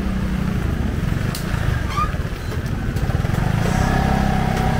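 Small motorcycle engine running at low speed close by, creeping along. Its sound fades about half a second in and comes back strongly from about three seconds in.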